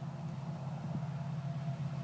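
Diesel locomotives of an approaching freight train, heard from far off: a steady low engine drone that grows slowly louder.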